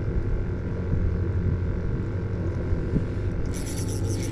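Boat engine running steadily, a low hum made of steady tones. A high hiss joins in near the end.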